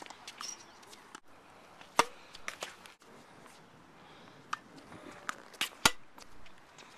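Tennis balls being struck by rackets and bouncing on a hard court: two sharp, loud hits about two and six seconds in, with lighter taps in between.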